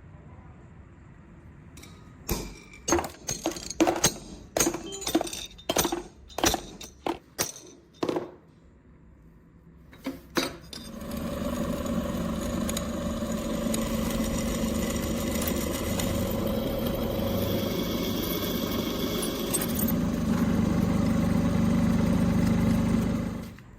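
About a dozen ringing hammer blows on steel, roughly two a second, then a couple of clicks. A steady machine noise with a constant hum then starts and runs until it cuts off suddenly near the end.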